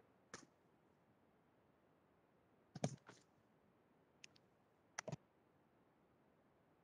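Near silence broken by a few faint, short clicks: one just after the start, a pair about three seconds in, a light tick a little later, and a quick pair about five seconds in.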